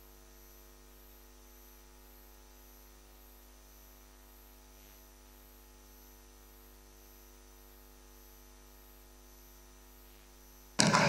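Faint, steady electrical mains hum of several unchanging tones, with the chamber's sound cut off. Near the end the room sound and voices cut back in suddenly.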